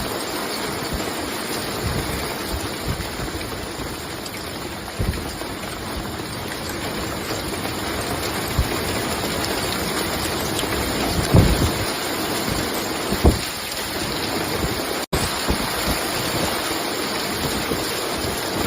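Storm downpour of rain and hail, a steady heavy hiss, with wind gusts hitting the microphone as low thumps, the strongest about 11 and 13 seconds in. The sound drops out for an instant about 15 seconds in.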